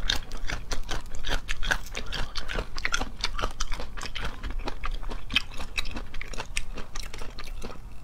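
Close-up chewing of crisp snake fruit (salak) flesh: a dense, unbroken run of small crisp crunches.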